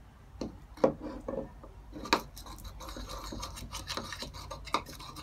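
Metal spoon scraping and stirring pink glue-and-laundry-detergent slime in a plastic bowl as it thickens. A few knocks of the spoon against the bowl in the first two seconds, then steady scraping and rubbing from about two seconds in.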